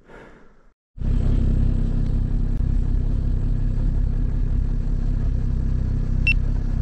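Snowmobile engine idling steadily nearby, cutting in abruptly about a second in.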